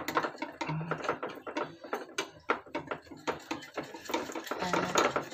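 Metal balloon whisk beating a flour batter in a glass bowl: rapid, irregular clicks and scrapes of the wires against the glass, whisking out the lumps.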